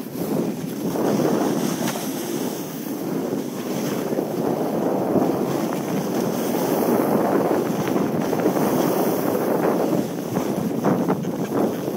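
Wind buffeting a phone's microphone during a fast downhill ride, a steady rushing noise that swells and dips, mixed with the hiss of sliding over snow.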